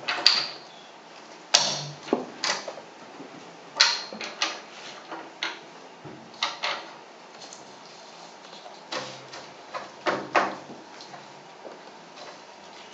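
Amplified clacks, taps and short scrapes of small objects being picked up and set down on a wooden table, coming irregularly, the sharpest near the start.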